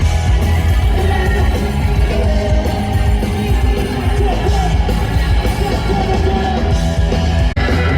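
Live rock band playing loud, with yelled singing over the band, and a brief sharp break near the end.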